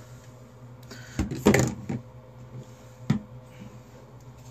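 Handling noise at the microphone: a cluster of knocks and rubbing about a second in, then a single short knock about three seconds in, over a low steady hum.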